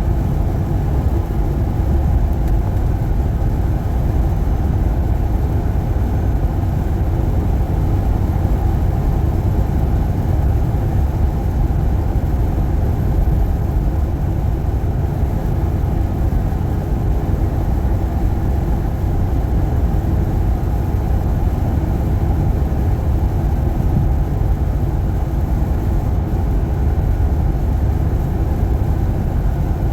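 Truck driving on the road: steady low engine and road rumble with no change throughout.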